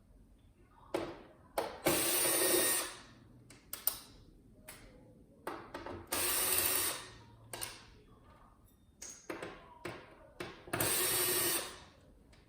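A power drill/driver backing out screws in three short runs of about a second each, with small clicks of screws and parts being handled in between.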